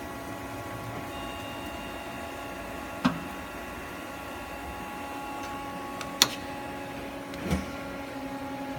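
Daewoo Lynx 210A CNC lathe powered up, giving a steady machine hum made of several tones, with three sharp clicks, the loudest about six seconds in, where some of the tones stop.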